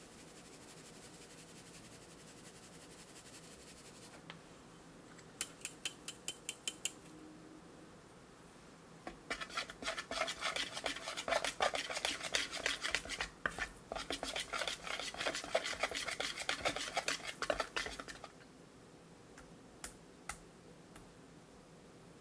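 A metal mesh sieve is tapped about seven times in quick succession to shake cacao powder and flour through. Then a wire whisk stirs the dry powder into oil and milk in a glass bowl, scraping and clinking rapidly for about nine seconds.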